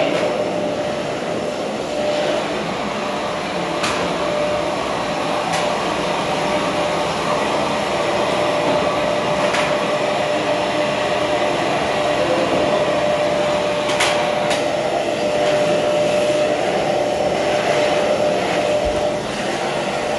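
Vacuum cleaner running steadily, a constant rushing noise with a steady whine, broken by a few short sharp knocks.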